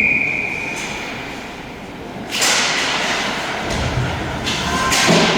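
Ice hockey game in an arena: a referee's whistle cuts off within the first second, then two sharp bangs about two and a half seconds apart, each echoing through the rink over a steady background of crowd and rink noise.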